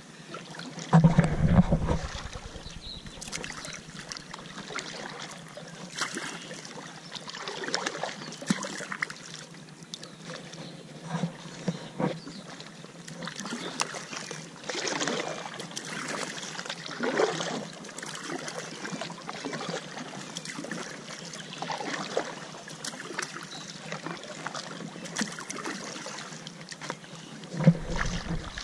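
Kayak paddle strokes in calm water: the blades dip and drip with light splashing every second or two. Two louder low rumbling bumps come about a second in and again near the end.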